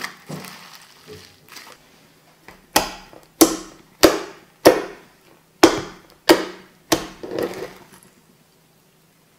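Hands squishing and pressing sticky slime: soft wet crackles at first, then seven sharp pops, one roughly every half second to a second, as fingers push into the mound and trapped air bursts out.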